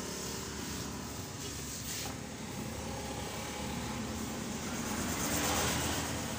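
Road traffic outside: a steady hum of engines and tyres, with one vehicle passing and swelling louder about five seconds in.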